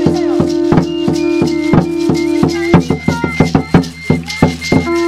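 Music with a steady shaker or rattle beat, about four strokes a second, over a held low note that drops out about halfway through, with higher melody notes on top.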